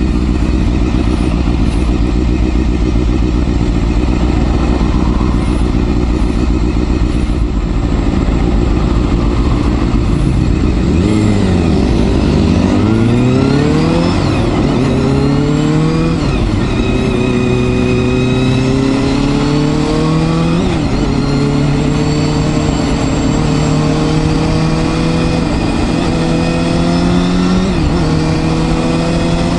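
Honda Hornet 250's inline-four engine running at a steady pitch for about ten seconds, then pulling away: the pitch climbs in each gear and drops back at each upshift, five or six times.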